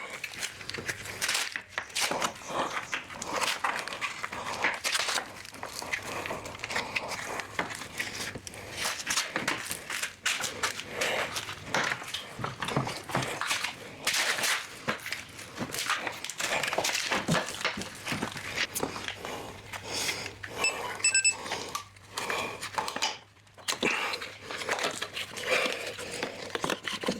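Irregular clatter of knocks, clicks and scraping, with a brief run of faint high pips about three-quarters of the way through.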